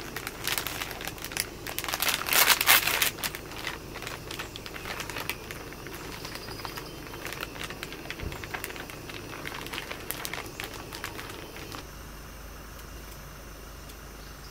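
Crinkling and rustling with many light clicks and taps, as of packaging and objects being handled, loudest and densest about two to three seconds in and dying away near the end.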